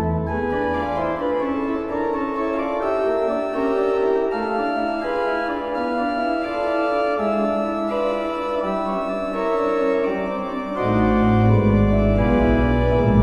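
Church organ playing slow, sustained chords. The deep pedal bass drops out about a second in and returns strongly about eleven seconds in.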